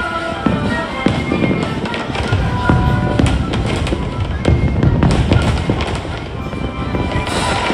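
Aerial fireworks bursting in a dense, rapid string of deep bangs and sharp cracks, with music playing underneath.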